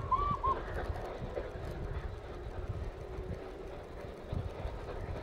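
Steam whistle of the Flying Scotsman, an LNER A3 steam locomotive: a long blast ends right at the start, followed by two short toots. Then the distant train running against a low, gusty rumble.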